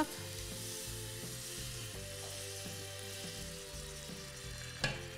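Chopped onion frying in oil in a stainless steel pan, a steady gentle sizzle at the start of a light sauté.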